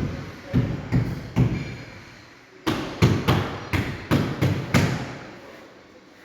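A series of heavy knocks on construction work: four blows, a pause of about a second, then seven more at roughly three a second.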